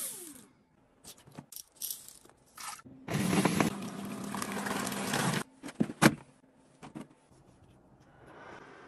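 A small appliance motor winds down with a falling whine at the start. Control knobs then click as they are turned, with a loud rushing noise for about two seconds in the middle. A faint steady fan hum starts near the end.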